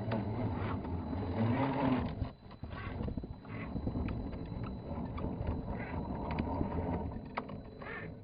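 Scale RC rock crawler's electric motor and geared drivetrain whining as it is driven, the pitch rising and falling with the throttle, with scattered clicks. It dips briefly a little over two seconds in.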